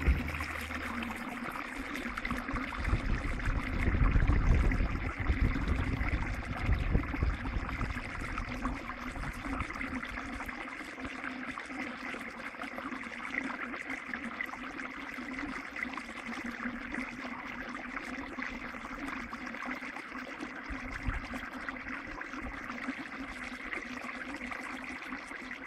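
Small brook trickling and splashing down a short drop over stones, a steady rushing water sound. A low rumble adds to it for several seconds near the start.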